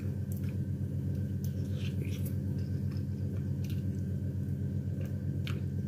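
A person chewing and gnawing cooked meat off a bone, with scattered short wet smacks and clicks, over a steady low hum.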